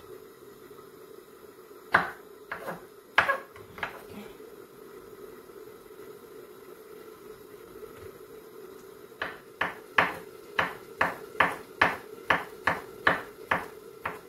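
Chef's knife chopping hot dogs on a wooden cutting board: a few scattered knocks about two seconds in, then a quick run of about a dozen chops, roughly three a second, in the second half.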